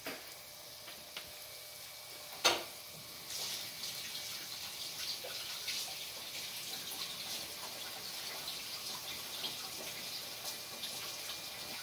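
Oliebollen dough balls deep-frying in a pot of hot oil: a dense, steady crackling sizzle that grows louder about three seconds in. A sharp knock just before it is the loudest single sound.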